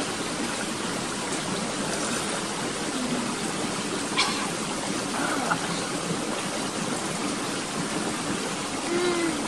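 Steady rushing of a flowing river or stream over rocks.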